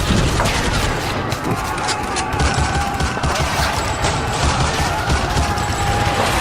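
Battle sound effect of dense small-arms fire: rapid rifle and machine-gun shots crackling without pause over a steady low rumble.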